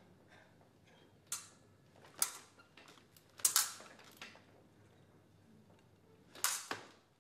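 Sabre blades striking each other in a handful of sharp metallic clashes, the loudest a quick double hit about three and a half seconds in and another strong clash near the end.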